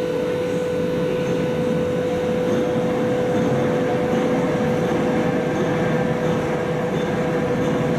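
Train running steadily: an even rumble with a constant whine held on one pitch.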